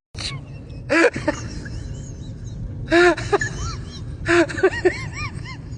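Short rising-and-falling vocal cries in small clusters, over a steady low background hum.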